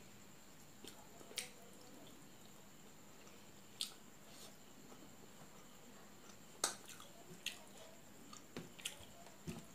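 Eating sounds of a person feeding herself rice and fish curry by hand: scattered short, wet mouth clicks and lip smacks while chewing, sparse at first and coming closer together near the end.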